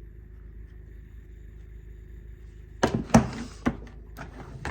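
Quiet room tone, then about three seconds in a quick cluster of hard knocks and clicks, the loudest followed by a brief rustle, then a few lighter taps: hard gear being handled on a surface.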